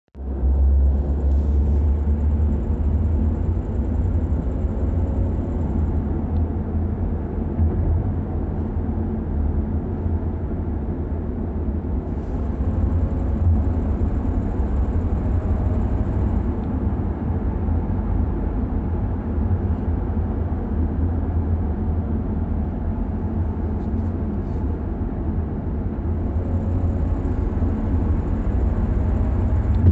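2018 Camaro ZL1's supercharged V8 running steadily, a deep low drone with only slight shifts in pitch.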